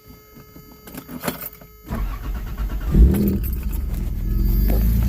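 Toyota 3.4 V6 engine being started: a couple of clicks, then the starter cranks for about a second, the engine catches about three seconds in and settles into a steady idle that rises a little near the end. The engine now breathes through a newly fitted cold air intake with a K&N filter.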